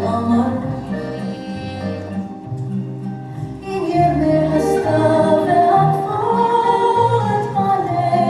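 Music with a sung melody: long held notes over a steady bass, growing fuller and louder about four seconds in.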